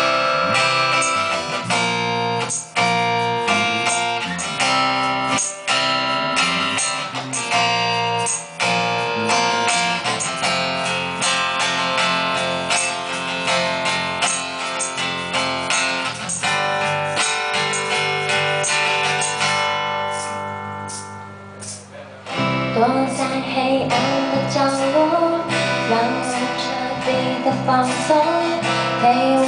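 Strummed acoustic guitar and electric bass playing an instrumental passage of a pop song live. About 21 seconds in the strumming thins and dips, then the band comes back in with a bending melody line over the chords.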